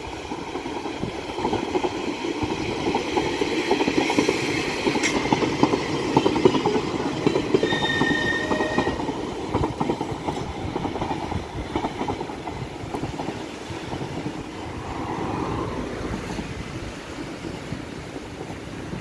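Vintage Manx Electric Railway electric tram and trailer car running past on street-level track, wheels clicking over the rail joints. The sound builds as it approaches and fades as it runs away. A brief high tone comes about eight seconds in.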